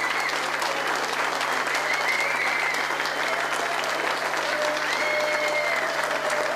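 Audience applauding steadily, with a few long drawn-out calls from the crowd over the clapping.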